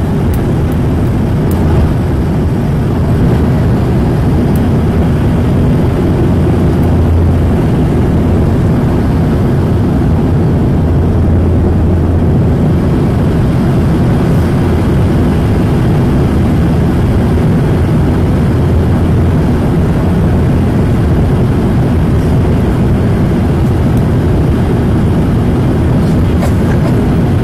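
Steady, loud, deep drone of a turboprop airliner's engines and airflow, heard inside the passenger cabin during the descent.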